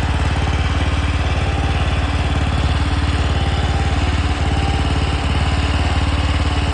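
Mini skid steer's engine running steadily at a constant speed, a fast even pulsing drone.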